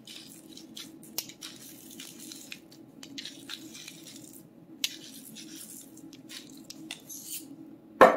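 A handheld salt mill grinding coarse salt in quick, gritty crackles, pausing briefly about halfway through, then a sharp knock near the end as the mill is set down on the stone countertop. A steady low hum runs underneath.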